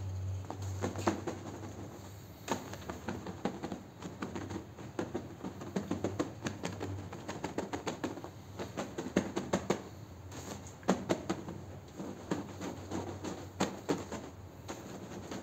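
Stiff-bristled push broom scrubbing a rug soaked in soapy foam: quick, wet, scratchy strokes coming in uneven runs.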